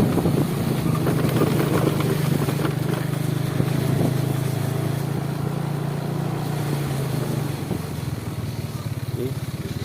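Motorcycle engine running steadily at low speed while riding, easing off a little near the end.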